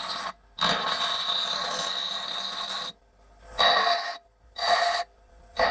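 Tool scraping against the steel of a truck spindle: one long pass of about two and a half seconds, then three short passes.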